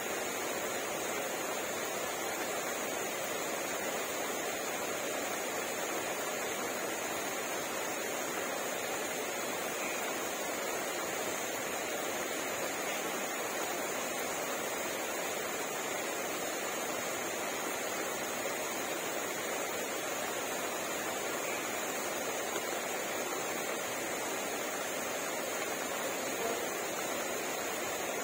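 Steady rain falling, an even hiss that holds the same level throughout with no thunder or breaks.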